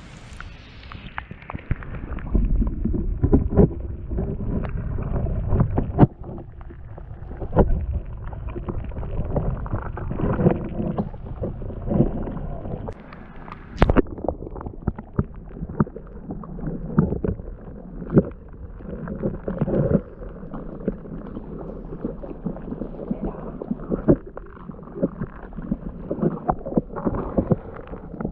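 Muffled sound from a camera held under water: low gurgling and sloshing, with many scattered knocks and clicks against it.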